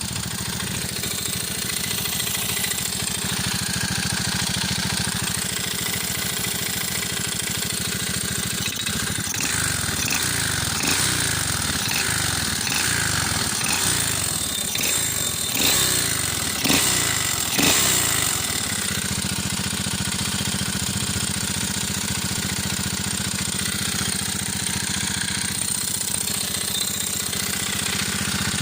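125 cc single-cylinder four-stroke pit-bike engine in a moped idling, then revved up and down several times for about ten seconds before settling back to idle. The engine has a knock.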